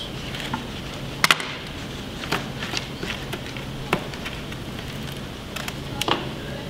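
Foam board airplane parts being handled and pressed together on a workbench: scattered light taps and clicks, the loudest a sharp double click about a second in, over a faint steady low hum.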